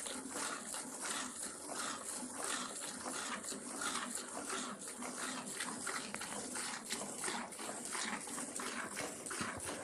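Gir cow being milked by hand: jets of milk squirting into a metal pot already holding milk, one squirt per squeeze of the teat, in a quick, even rhythm.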